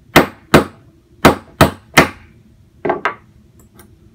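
Hammer striking a pin punch, driving the solid extractor retaining pin out of a Marlin 1894 rifle bolt that rests on a punch block. Five sharp taps come in about two seconds, then two lighter taps close together about three seconds in. The pin comes out pretty easily.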